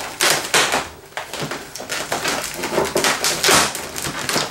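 Inflated 260 twisting balloons squeaking and rubbing against each other in irregular, uneven strokes as they are squeezed and pushed through one another.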